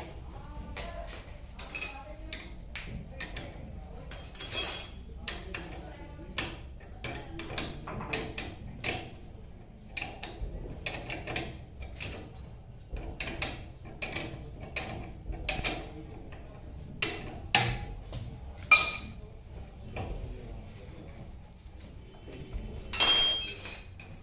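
Hand tools and metal fittings clinking and tapping irregularly as nuts, bolts and clamps of the sidecar mountings are worked on, with a longer, louder scrape near the end.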